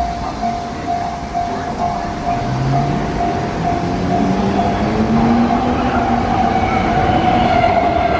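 Sotetsu 9000-series electric train drawing away from the station toward and past the listener, its traction motor whine rising in pitch as it accelerates, with the noise of the cars building near the end. A level crossing bell rings steadily about twice a second throughout.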